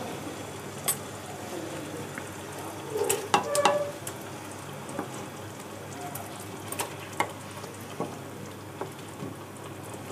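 Milky curry gravy simmering in a pan with a light, steady sizzle and scattered small pops. A brief clatter comes about three seconds in.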